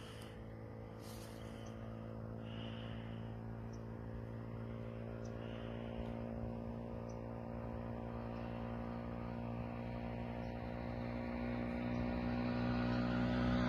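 An engine's steady drone, growing gradually louder.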